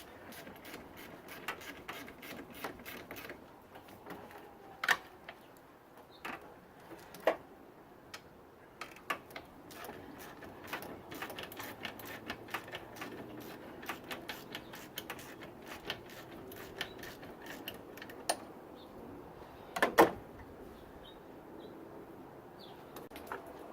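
Hand tools working on metal engine parts: irregular light clicks and rattles, with a few sharper metal knocks, the loudest near the end.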